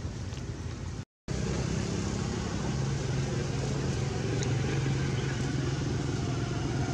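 Steady background hum of a motor vehicle engine running, with the sound cutting out briefly about a second in.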